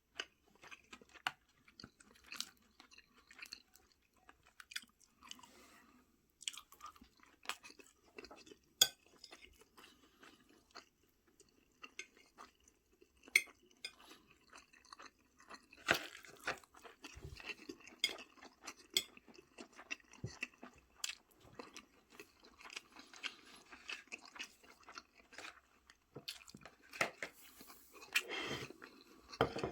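Close-up eating sounds: food being chewed and crunched, with repeated sharp clicks and crackles and a couple of louder crunchy bites.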